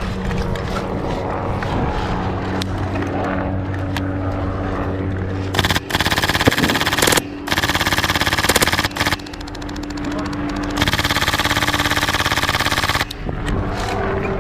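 Airsoft gun firing several long full-auto bursts, the first starting about five and a half seconds in and the last running about two seconds, after a stretch of steady low rumble.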